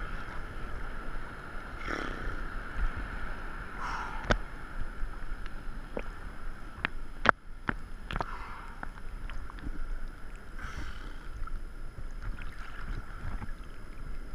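Small choppy waves lapping and sloshing against a waterproof action camera held at the water's surface, with several sharp taps against the camera between about four and eight seconds in.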